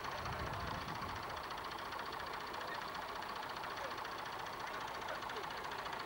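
Massey Ferguson tractor's diesel engine running steadily, with a fast, even beat.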